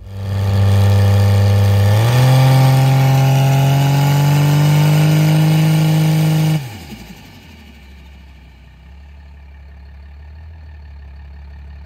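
Cummins diesel drag truck's engine running hard at a steady pitch, stepping up about two seconds in and climbing slowly higher. About six and a half seconds in it cuts off suddenly, the pitch falling away, leaving a much quieter low drone.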